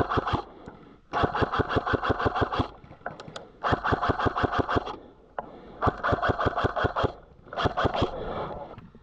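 Airsoft rifle firing on full auto in five bursts, each a rapid even rattle of shots lasting up to about one and a half seconds, with short pauses between them.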